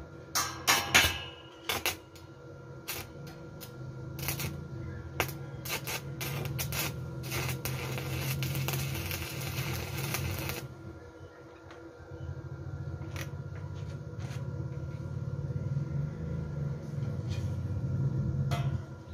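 Stick (arc) welding on a steel pipe with a small inverter welder: a few short, sharp crackles in the first two seconds and scattered ticks, then a steady arc crackle for about three and a half seconds that cuts off suddenly just past the middle. A steady low hum runs underneath.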